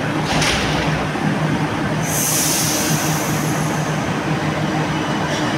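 Milan Metro M1 Meneghino train moving off from an underground platform, its running noise and low hum steady. A high hiss rises about two seconds in and fades a second or so later.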